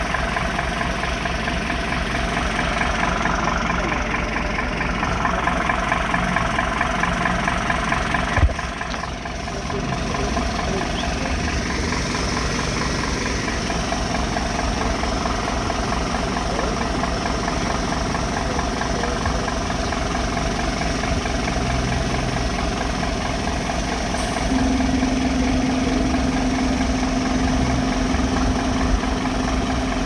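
A vehicle engine idling steadily. A single sharp knock comes about eight seconds in, and a steady low hum joins about two-thirds of the way through.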